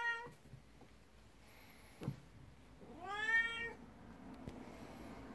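Twelve-year-old black cat meowing for attention as it rubs against bare feet. The tail of one rising meow comes right at the start, then one long meow rises and falls about three seconds in. A short soft thump sounds about two seconds in.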